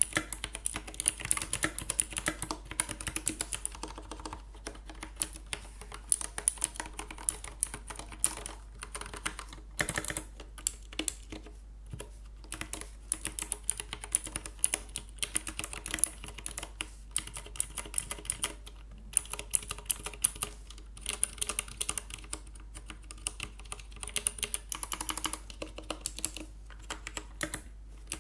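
Typing on a GK61X 60% mechanical keyboard fitted with a mix of different switches, clicky box, tactile and linear side by side. The keystrokes come in fast irregular runs with short pauses, their clicks and clacks varying from key to key.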